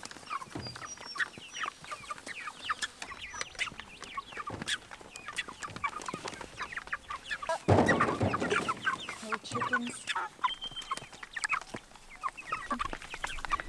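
A flock of six-week-old meat chickens (broilers) peeping and clucking without a break as they crowd the feeder. About eight seconds in there is a loud rush lasting about a second as feed is poured from a bucket into their pipe feeder.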